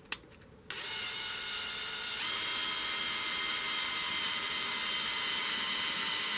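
DeWalt Atomic cordless drill with a 1/4-inch bit running at steady speed, drilling a hole through a fabric ball cap. A click, then the motor starts with a steady whine under a second in, getting a little louder about two seconds in.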